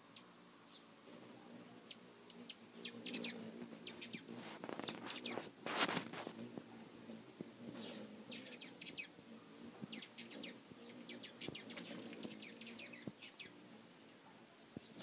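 Hummingbirds chattering at a nectar feeder: quick bursts of high, squeaky chip and twitter calls, thickest a few seconds in and thinning toward the end.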